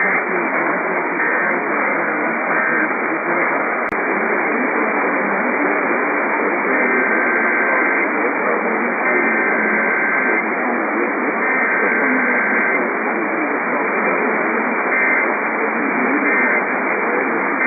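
Weak AM radio reception, a steady band-limited static hiss. Buried in it, faint warbling EAS digital data bursts sound three times about a second apart in the middle, with a few shorter bursts near the end. A single sharp click comes about four seconds in.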